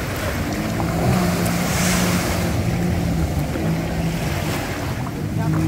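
Speedboat's outboard motor running at low speed, a steady hum, with waves washing in the shallows and wind on the microphone; a brief hiss of spray or wind about two seconds in.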